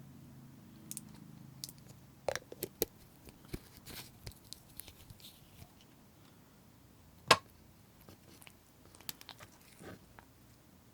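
Slime being pressed and worked by hand: irregular sticky pops and crackles, with one sharp, loud pop about seven seconds in.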